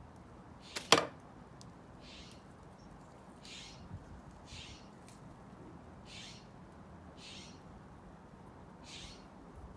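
A sharp knock about a second in, over faint crackles from the wood fire and a soft hiss that comes and goes roughly once a second.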